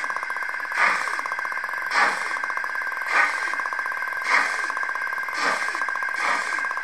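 Sound decoder of a Roco H0 model class 85 steam locomotive giving slow steam-exhaust chuffs, about one a second and coming a little quicker near the end, over a steady hum as the model moves off.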